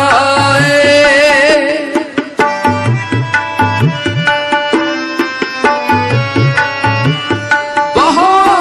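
Sikh kirtan in Raag Malhar: a sung note wavers and fades in the first two seconds, then harmonium and tabla play an instrumental passage, the tabla's bass drum sliding up in pitch on its strokes. The voice comes back in near the end.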